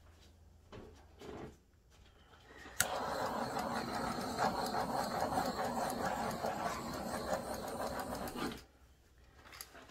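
Handheld butane torch lighting with a sharp click about three seconds in, then the flame running with a steady hiss for about six seconds before it cuts off suddenly.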